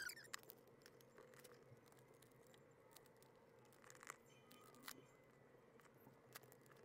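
Near silence: faint room tone with a few soft clicks, one about four seconds in and another about a second later.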